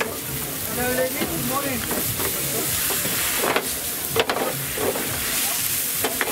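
Stir-fry sizzling in a wok, with the spatula scraping and knocking against the pan every second or so as the food is stirred and tossed.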